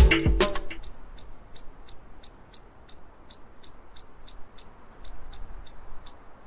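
A baby chipmunk chirping: a steady run of short, high, tiny-sounding chips, about three a second.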